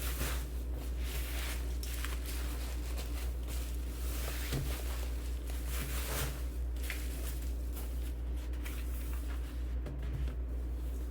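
Unboxing handling of keyboard packaging: scattered soft rustles, slides and light taps at an irregular pace, over a steady low hum.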